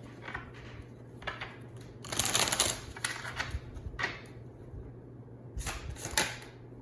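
Tarot cards being handled, a run of papery rustles and flicks. The loudest flurry comes a little after two seconds, a sharp snap about four seconds in, and another flurry near the end.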